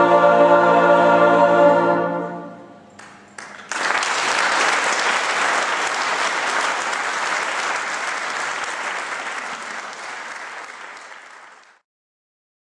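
A brass band and mixed choir hold a final chord that ends about two seconds in and dies away in the hall's reverberation. After a short pause, audience applause starts abruptly and carries on steadily, then fades out near the end.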